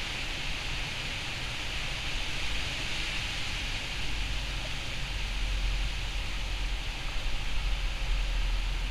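Steady outdoor background noise: an even hiss with a low rumble that grows stronger about halfway through, with no bird calls.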